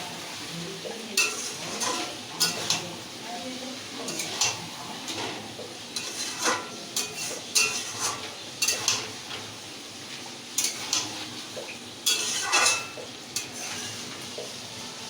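A spatula scraping and knocking irregularly against a kadai while chicken and potatoes are stirred and fried in masala, with the food sizzling underneath.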